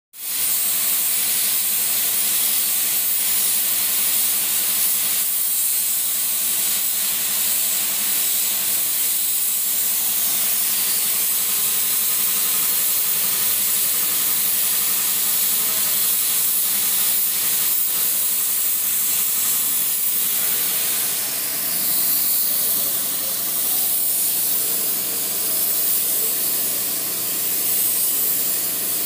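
Gravity-feed spray gun hissing steadily as compressed air atomises paint onto a car bumper.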